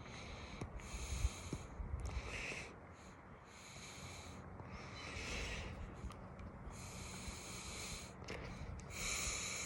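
A person breathing heavily close to the microphone: a run of hissy, snorting breaths roughly one a second, with a low rumble of handling noise at times.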